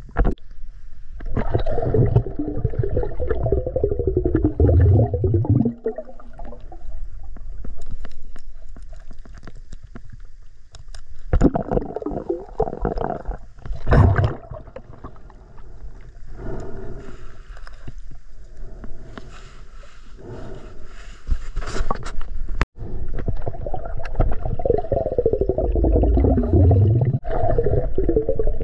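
Muffled underwater sound of a snorkeler swimming with the camera: rushing and gurgling water with low rumbling. Twice a set of tones slides steadily downward, once a few seconds in and again near the end.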